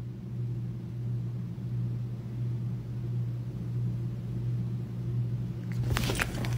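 Domestic cat purring right against the microphone: a steady low rumble. Near the end there is rustling as the phone moves, and then it cuts off.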